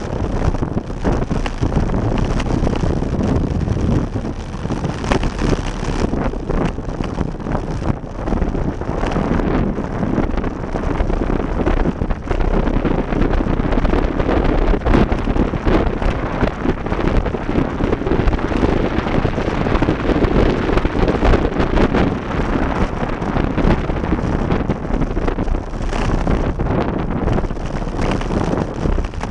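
Loud, steady wind buffeting on the camera microphone from the rush of air on a fast bicycle descent.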